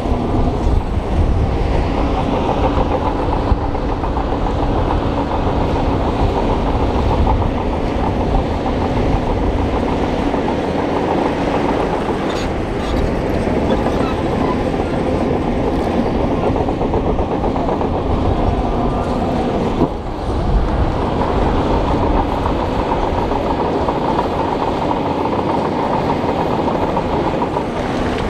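Crawler bulldozer at work: its diesel engine running under load, with the clanking rattle of its steel tracks.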